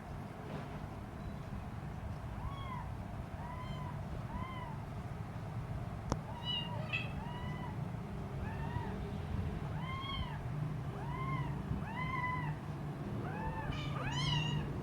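Three-week-old kitten meowing over and over, short calls that rise and fall in pitch about once a second, crowding closer and going higher near the end: the crying of a hungry kitten. A single sharp click about six seconds in, over a steady low hum.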